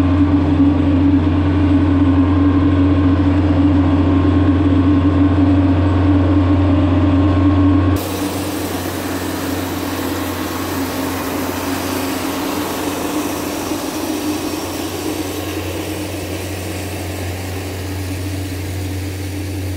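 Kioti RX7320 tractor's diesel engine running steadily under load as it pulls a homemade chisel plow through the soil, heard from the cab. About eight seconds in, the sound cuts to the tractor heard from outside: quieter, the engine hum under a broad hiss.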